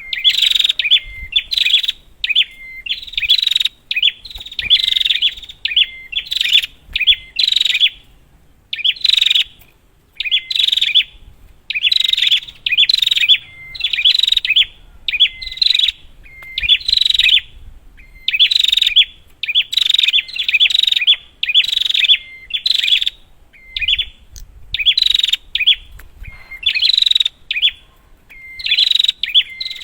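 Prenjak (prinia) calling over and over in rapid, sharp chattering phrases, about one a second, many of them opening with a short thin note.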